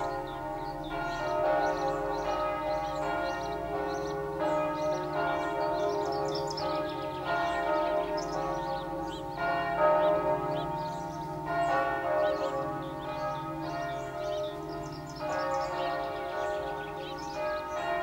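Several church bells in the church tower at Picquigny castle ringing together in a continuous peal. Their strokes at different pitches overlap, and the ringing hangs on without a break.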